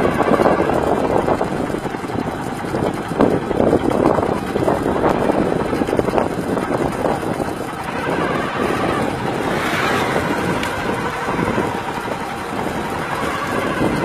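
A motor vehicle on the move, heard from on board: steady engine and road noise, with a few short swells.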